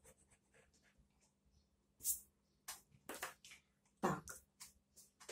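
A coloured pencil scratching on paper in a few short, separate strokes, starting about two seconds in after a near-silent start.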